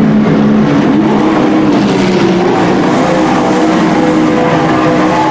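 Dirt-track race trucks' engines running at speed on the track, their engine notes rising and falling as they go by.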